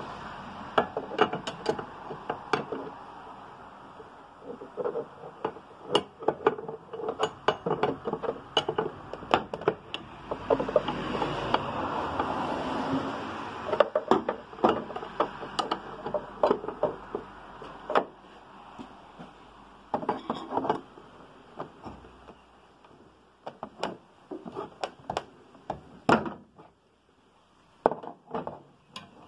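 Plastic windshield wiper cowl on a Ford Freestar being pried and pulled loose with a pry tool: irregular clicks, knocks and scrapes of plastic clips and panel edges, over a rustling noise. The clicks are busiest in the first two-thirds and come sparser near the end.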